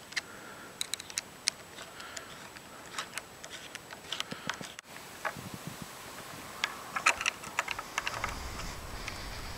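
Slot-head screwdriver turning the worm-gear screw of a hose clamp to tighten it: a string of light, irregular clicks.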